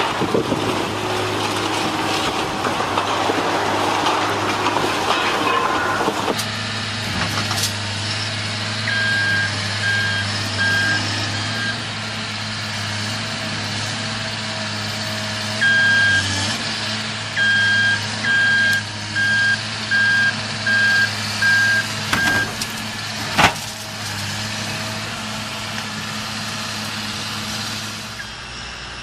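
Caterpillar 325D excavator's diesel engine running steadily, with a backup alarm beeping in two runs of evenly spaced beeps and one sharp crack shortly after the second run. The first six seconds are a rougher, louder demolition noise from a building being torn down.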